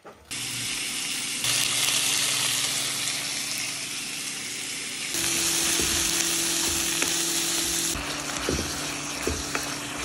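Sliced food sizzling loudly in a non-stick frying pan on an induction cooktop as it is stirred with a spatula, with a few short taps of the spatula against the pan. The sizzle jumps abruptly in level a few times.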